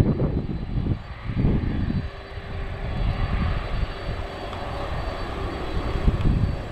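Jet engines of a Boeing 767 freighter running, a heavy rumble with a steady tone coming in about two seconds in, with wind buffeting the microphone.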